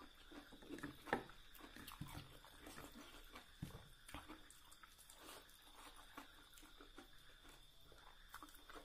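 Faint sounds of eating by hand: fingers working rice on a plate, chewing and small mouth smacks in a quiet, irregular run of clicks. A faint steady high tone sits underneath.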